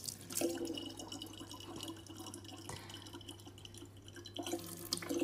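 Thin stream of water from a faucet trickling and dripping into a plastic bottle, with small splashes as a cat paws at the falling water; a little louder near the end.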